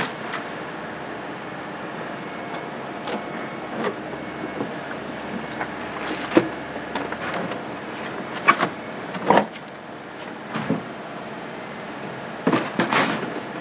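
Wheelie bin being stuffed and trodden down: scattered knocks, crackles and scrapes as large white sheets are forced in and stamped on, over a steady background hiss. The loudest knocks come in the second half, with a cluster near the end.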